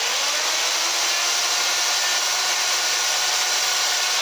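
Makita electric chainsaw running steadily at full speed, its bar cutting into a wooden block.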